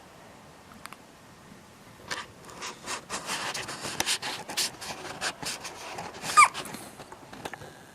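A dog with the hiccups: a run of short, sharp breathy catches starting about two seconds in. The loudest, about six seconds in, ends in a brief falling squeak.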